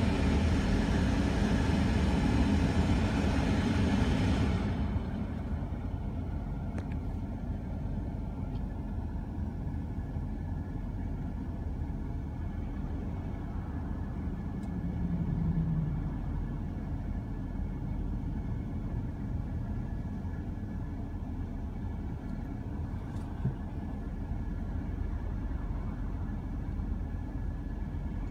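Road noise of a slowly moving car heard from inside the cabin, a steady low rumble. A louder rushing noise over it stops suddenly about four to five seconds in.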